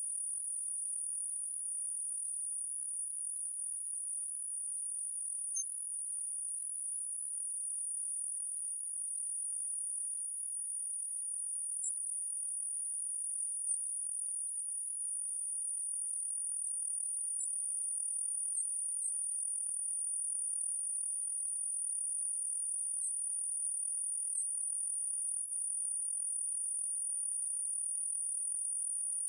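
A continuous, very high-pitched electronic whine: two close, steady tones that never vary, with a few faint tiny ticks. Nothing else is heard.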